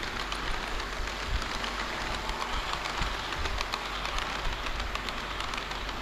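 HO-scale model diesel railcar train running along the track close by, its wheels clicking over the rail joints in a steady rattling run.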